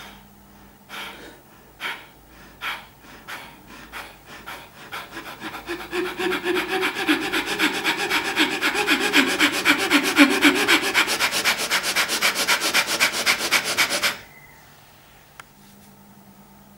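Fast rhythmic hand strokes against the body and clothing. They start as a few separate slaps, speed up to a steady run of about eight a second, then stop abruptly about fourteen seconds in.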